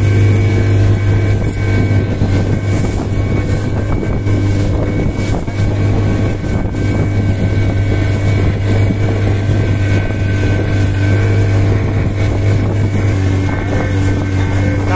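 Motorboat engine running steadily at constant speed, a loud, even low hum with steady overtones.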